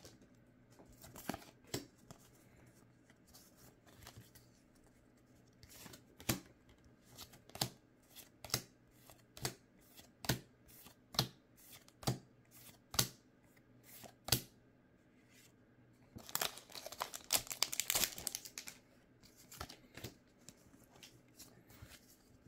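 Pokémon trading cards being flipped one at a time off a stack in the hand, a sharp snap about once a second. Near the end, a foil booster-pack wrapper crinkles.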